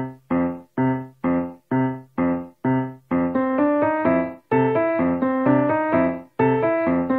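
Background music on a piano-like keyboard: a repeated chord struck about three times a second, joined about three seconds in by a melody over steady chords.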